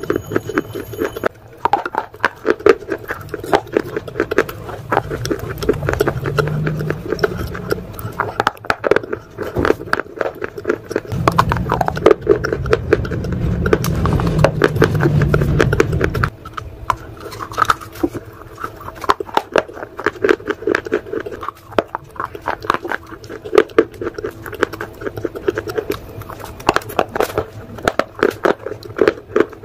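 Shale bars being bitten and chewed: dense, crackling crunches as the brittle grey rock breaks between the teeth. A louder low rumble runs under the crunching for about five seconds near the middle.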